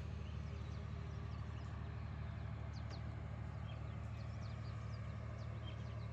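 A steady low mechanical hum made of several steady tones, with a few short high bird chirps over it.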